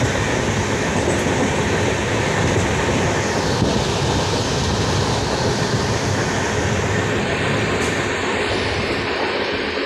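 Indian Railways passenger train running at speed, heard through an open coach window: a steady rumble and rattle of the wheels on the rails.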